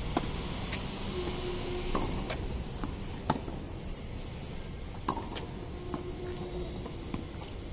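A tennis rally on a hard court: about seven sharp pops at irregular spacing, from racket strings striking the ball and the ball bouncing.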